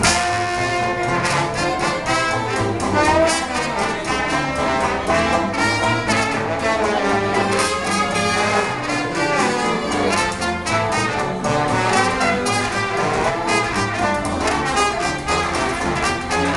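Small jazz band playing live: trombone and trumpet lines over upright bass and hand percussion.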